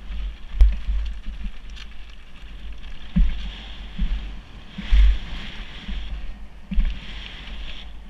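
Mountain bike rolling fast over loose stones and gravel on a downhill trail: a steady crunching hiss from the tyres, with a dull thump about once a second as the wheels hit rocks. Wind rumbles on the camera microphone.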